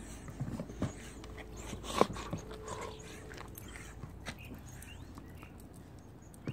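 Dogs chewing and mouthing a rubber toy, with scattered clicks and taps on concrete and one sharp knock about two seconds in.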